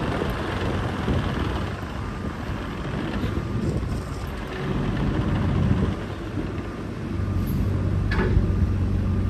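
JCB 8035ZTS mini excavator's diesel engine running, with a rough low rumble that settles into a steadier hum about seven seconds in. A brief sharp sound comes about a second later.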